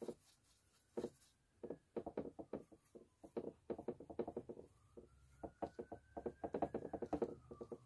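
Paintbrush working wet acrylic paint across a stretched canvas: a faint, irregular run of soft taps and short strokes, busiest in the second half.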